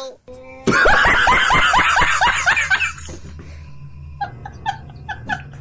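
A loud burst of rapid laughter, about five 'ha' pulses a second, each falling in pitch, lasting about two seconds. After it comes a low hum, and near the end a quick run of short chirping pips.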